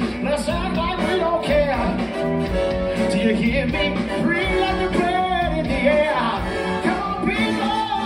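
Live band music with a male vocalist singing into a microphone.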